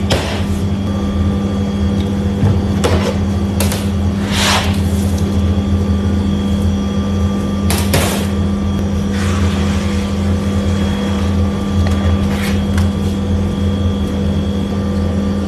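Steady low hum of kitchen equipment. Over it come a few brief rustles and knocks, the loudest about eight seconds in, as a large pizza dough base and a plastic mat are handled and flipped on a steel counter.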